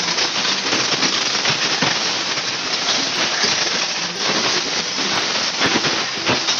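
Portable pressure washer's water jet spraying droppings off a pigeon cage, a steady loud hissing spatter like heavy rain, with a faint motor hum underneath.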